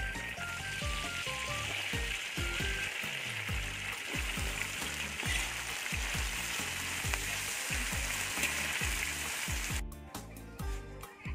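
Minced garlic and then water spinach sizzling in hot oil in a wok as they are stir-fried with tongs. The sizzle cuts off suddenly near the end.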